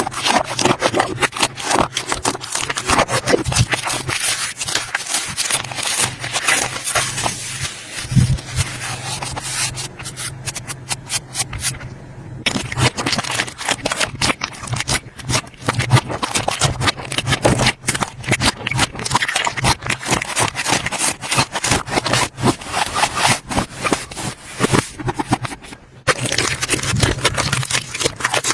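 Slime being squeezed, stretched and poked by hand: a dense, continuous run of small crackles, pops and sticky clicks. The texture changes abruptly twice.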